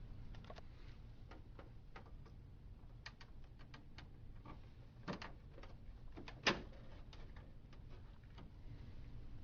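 Scattered light plastic clicks and taps, with two louder snaps about five and six and a half seconds in: a flathead screwdriver working the rear hooks of a Dell 5100cn laser printer's plastic top cover to release it.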